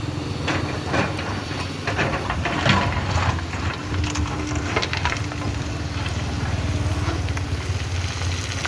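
Hydraulic excavator's diesel engine running steadily under load, with irregular crunching and scraping as the bucket digs into river sand and gravel, heaviest in the first half.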